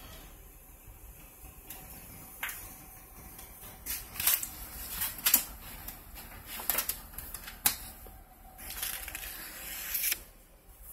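Irregular sharp clicks and knocks, several close together in the middle, followed by a stretch of rustling hiss near the end; handling and movement noise inside the van's cab.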